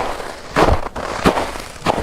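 Footsteps crunching in snow, a steady walking pace of about two steps a second.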